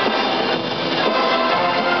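Loud music played through a sound system during a sound check.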